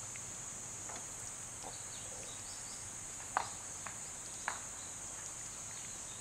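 A steady, high-pitched chorus of insects, with a few sharp clicks about halfway through as chopsticks lift noodles from a metal pot.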